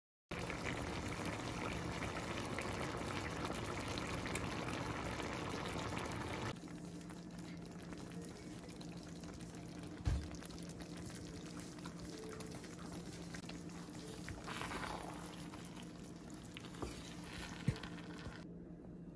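Thick casserole simmering and bubbling in a cast iron skillet, a dense steady bubbling noise that drops abruptly to a much quieter simmer about six and a half seconds in. A soft low thump comes about ten seconds in and a couple of small clicks near the end, over a low steady hum.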